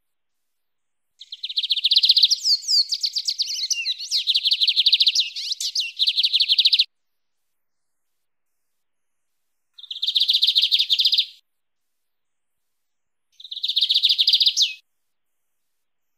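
Lined seedeater (bigodinho) singing its wild-type "mateiro" song in fast, buzzy trills. A long phrase of about five seconds starts a second in, then two shorter trilled phrases follow after pauses, with dead silence between the phrases.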